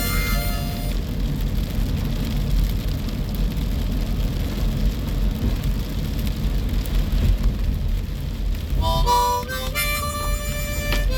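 Storm wind buffeting the microphone, a steady low rumble. Short musical notes, several sounding together, break in during the first second and again from about nine seconds in.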